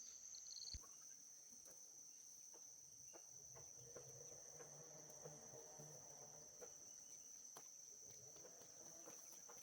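Near silence, with a faint steady high-pitched insect drone and a few faint ticks.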